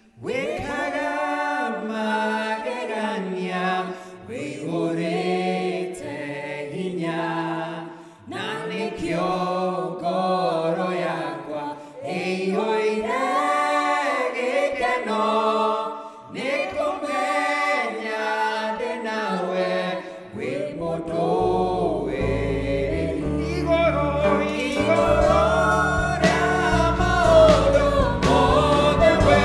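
A man sings a gospel worship song into a microphone, at first with voices alone; about two-thirds of the way in a keyboard joins underneath with low sustained bass notes.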